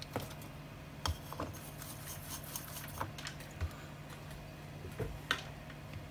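A dozen or so small, scattered clicks and taps as a hand grips and shifts a speaker tweeter's metal frame on a work mat, over a steady low hum.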